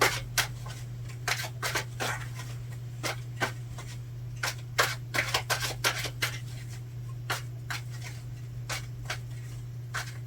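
A tarot deck being shuffled by hand: a run of irregular sharp card clicks and slaps, about two or three a second, over a steady low hum.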